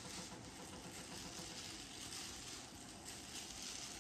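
Faint crinkling rustle of a disposable plastic glove rubbing hair dye into curly hair, coming and going in soft, irregular bursts.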